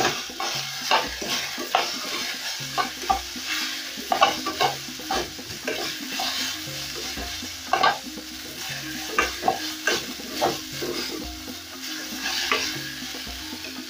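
Goat meat cubes sizzling as they brown in oil in a metal pot, stirred with a metal spatula that scrapes and taps against the pot over and over at an uneven pace.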